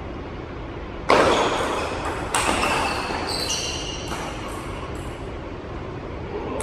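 Two loud bangs about a second apart, each ringing on briefly in a large hall, followed by several short high squeaks.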